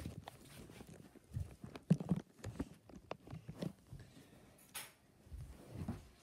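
Irregular low thumps and knocks of footsteps on a wooden floor, mixed with handling noise from a phone swinging around, and a brief rustle a little past the middle.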